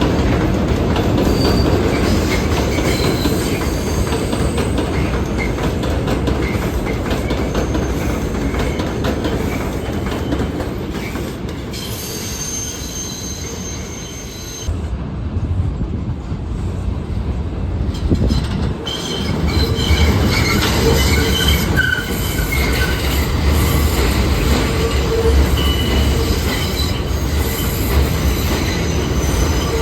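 New York City subway train running on steel rails with its wheels squealing and some clattering. The sound eases off about halfway, then swells again with heavier rumble and squealing.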